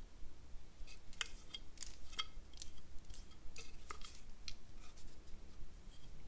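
Light, irregular clicks and clinks, about a dozen over four seconds, some with a short metallic ring, as a Hultafors Hultan hatchet's forged steel head is turned over in the hands.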